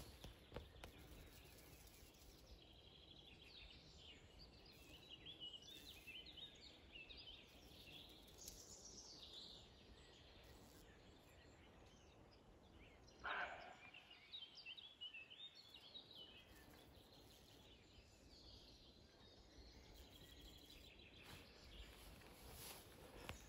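Faint meadow ambience with small birds singing high and thin, and about halfway through a single short, gruff bark from a roe buck, the roe deer's alarm bark.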